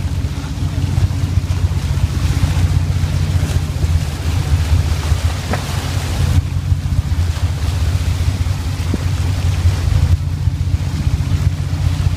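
Fishing boat's engines running with a steady low drone, under the rush of whitewater churning along the hull and wind on the microphone.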